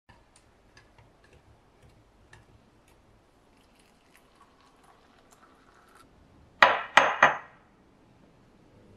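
A spoon clinking lightly against a brass cezve as a drink is stirred, then liquid poured into a glass. About two-thirds of the way through come three loud, sharp clinks in quick succession, each with a short high ring.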